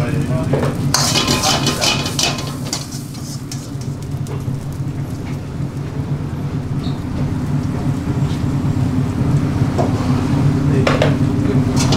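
A metal spoon scrapes and clatters against a wok as rice is stirred over a high gas flame, with some sizzling. The clatter comes in bursts about a second in and again near the end, over a steady low hum.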